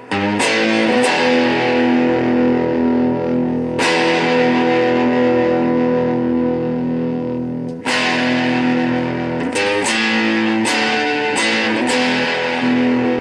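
Telecaster-style electric guitar built from a DIY kit, played through an amp with a touch of distortion. Chords are struck and left ringing, with a new chord every few seconds and a few quicker strums in between.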